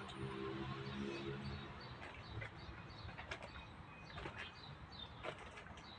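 Small birds chirping in the background, short high calls scattered throughout, over a low steady hum that fades out about two seconds in; a few sharp clicks in the second half.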